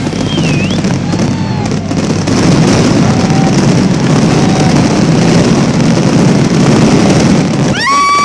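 Fireworks barrage: a dense, continuous rumble of shell bursts with no gaps, with a few faint whistles over it and a sharp rising whistle near the end.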